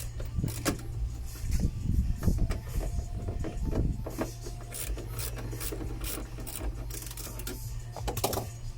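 A hand tool undoing the T30 Torx bolts that hold a car's wing mirror: irregular metallic clicks and scraping over a steady low hum.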